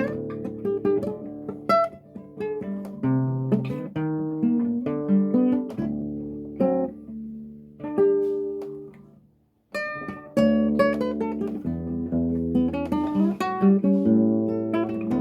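Acoustic guitar playing a Brazilian choro, plucked melody over a moving bass line. The notes break off into a short silence about nine and a half seconds in, then the playing picks up again.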